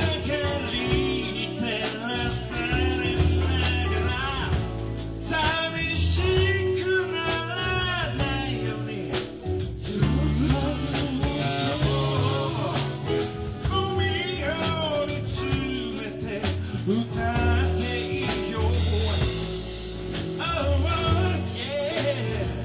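Live soul band playing, with drums, bass and guitar under a lead singing line that bends up and down over steady bass notes.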